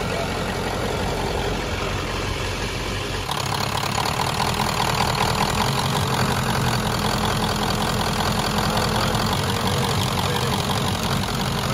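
Ford 7.3-litre turbo diesel V8 idling steadily under an open hood, growing somewhat louder about three seconds in.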